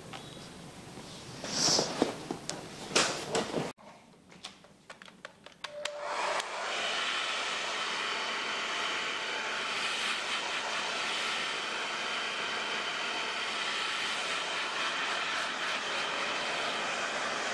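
Handheld hair dryer blowing steadily on wet hair, coming on about six seconds in after a few small clicks. Before it there are a few sharp taps and rustles.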